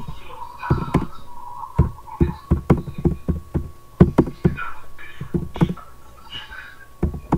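Typing on a computer keyboard: irregular, heavy key strikes with a thump to them, in quick runs and short pauses.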